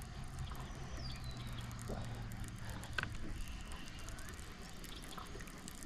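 Quiet water sounds of a small boat on a lake: light lapping and dripping, over a low steady hum that fades out about halfway, with a sharp click about three seconds in.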